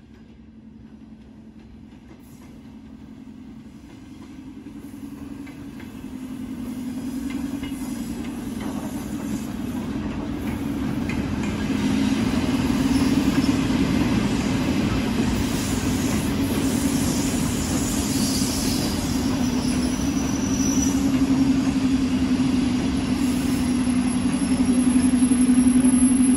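A train running on the tracks, growing louder over about twelve seconds and then running on steadily with a low hum and rumble. Faint thin high tones come in during the second half, typical of wheel squeal.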